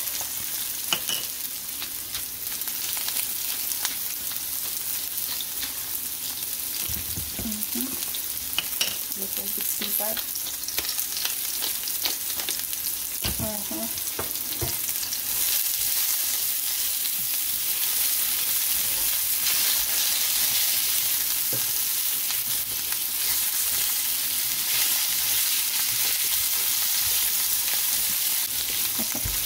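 Potatoes frying in oil in a pan, sizzling steadily, with occasional clicks of a utensil stirring them. The sizzle grows louder about halfway through.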